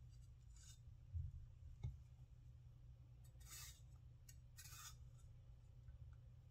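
Chinese vegetable cleaver slicing through tomato on a wooden cutting board: a few faint, short slicing swishes, with two dull thumps between one and two seconds in.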